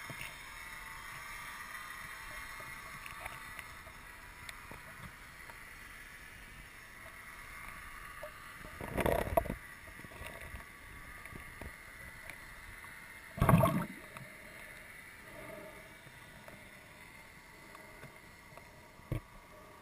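Underwater camera recording: a faint steady hiss with a thin steady whine, broken by two short loud rushes of water noise about four and a half seconds apart, and a single sharp click near the end.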